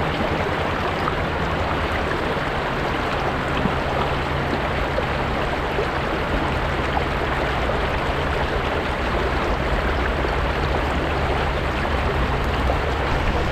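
River water running over rocks: a steady, even rush of flowing water.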